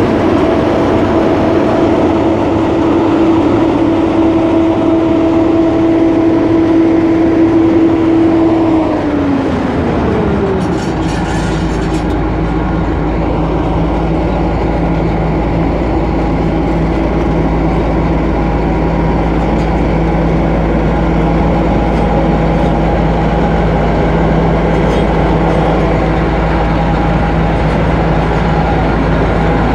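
2009 AGCO Gleaner A66 combine running, its AGCO Sisu six-cylinder diesel and drives giving a steady mechanical hum with a whine. About a third of the way in the whine drops in pitch over a couple of seconds and a lower, deeper hum takes over.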